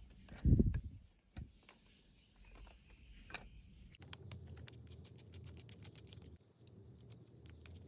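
Steering wheel parts being handled and fitted onto the column: a dull thump, a couple of light knocks, then a fast run of light clicks in the second half.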